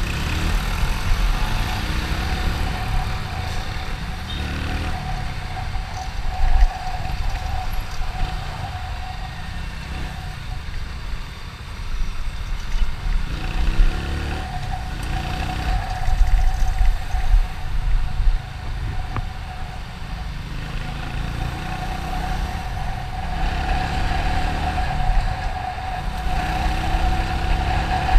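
Motorcycle being ridden, with heavy wind rumble on the microphone. The engine's pitch rises several times as it accelerates, over a steady high tone.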